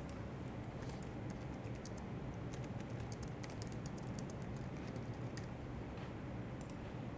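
Typing on a laptop keyboard: a run of quick key clicks through the middle, then a couple more near the end, over a steady low room hum.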